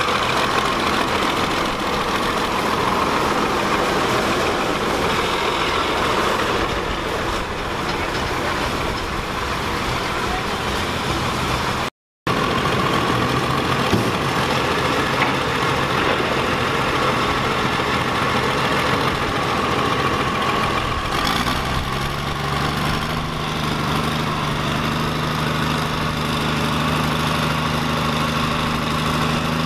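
Cummins diesel engine in a classic Ford two-wheel-drive pulling truck idling steadily as the truck creeps along. A deeper steady hum comes in about two-thirds of the way through, and the sound cuts out for a moment near the middle.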